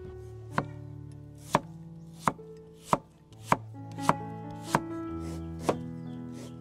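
Cleaver slicing a fresh bamboo shoot on a wooden chopping board: about eight separate cuts, each ending in a sharp knock of the blade on the board, a little more than one a second.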